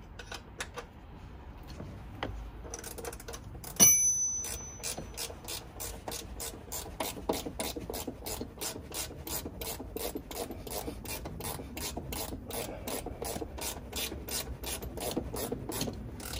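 A sharp metallic clank with a brief ringing about four seconds in, then a hand ratchet clicking steadily, about three clicks a second, as a bolt is driven down.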